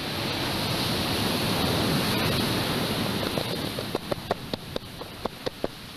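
Ocean surf surging against a lava ocean entry, a rushing wash of water that swells to a peak about two seconds in and then eases. Over the last two and a half seconds comes a quick run of about ten sharp pops.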